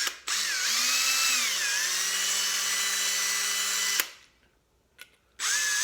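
Small electric drill running for about four seconds as it drills out a rivet in a die-cast Hot Wheels car. Its whine sags in pitch about a second in, then holds steady, and it stops suddenly. A short second burst of drilling comes near the end.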